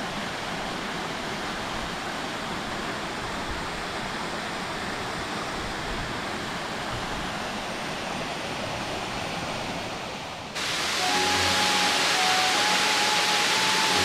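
Waterfall cascading down a narrow rocky gorge: a steady rush of falling water. A little over ten seconds in it cuts to a louder, hissier rush of water with soft background music of held notes.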